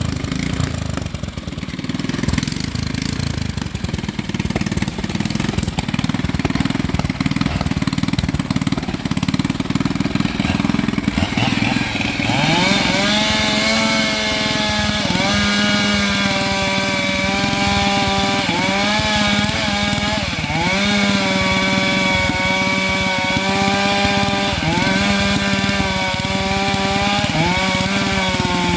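An engine runs at low speed for about twelve seconds. Then a Stihl MS 462 chainsaw revs up to full throttle and cuts into a sengon trunk, its pitch sagging briefly every few seconds as the chain bites and recovering each time.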